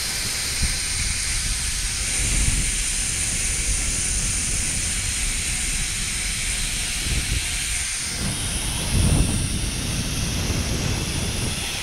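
Wind rushing over a phone microphone during a zipline ride, with the high steady whir of the trolley pulley running along the steel cable. The buffeting grows stronger about nine seconds in.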